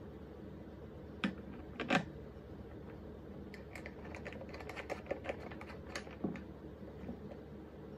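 Light handling clicks and taps as a fabric lampshade is fitted and adjusted on an IKEA Årstid table lamp: two sharper knocks near the start, then a quick irregular run of small clicks, over a low steady room hum.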